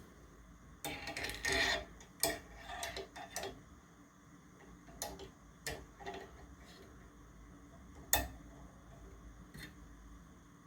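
Small metal clicks and taps of a .303 British go gauge being worked into a rifle chamber: a quick run of clicks in the first few seconds, then single scattered ones, the sharpest about eight seconds in.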